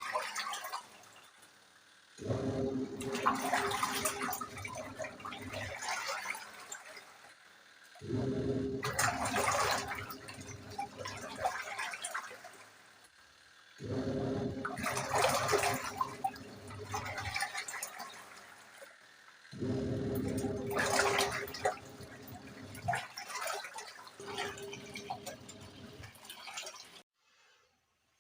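Ramptons 12 kg twin tub washing machine's wash tub churning water and laundry, the motor humming and water sloshing in bursts of about four seconds with short pauses between them, five times over.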